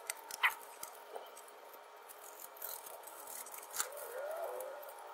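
Old gasket material being scraped and picked off a car's exhaust flange by hand: soft rubbing and scraping with a few sharp clicks, the loudest about half a second in and again near four seconds.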